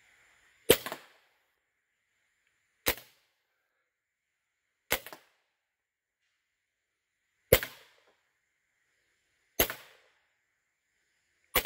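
SMG .22 PCP air rifle, running on high-pressure air through an 1100 PSI regulator, fired six separate times about two seconds apart. Each shot is a sharp crack followed by a brief tail.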